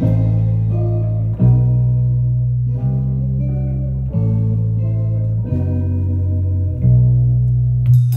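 Instrumental music: a bass guitar line with plucked guitar chords above it, the bass note changing about every second and a half. A fuller band entry hits just before the end.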